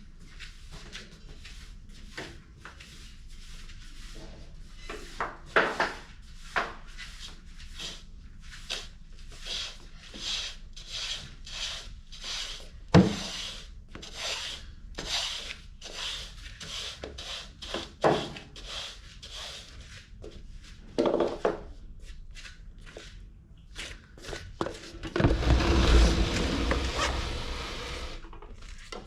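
Repeated rubbing or scrubbing strokes, roughly one a second, with a few sharp knocks, one especially loud about halfway through. A louder rushing noise lasts about three seconds near the end.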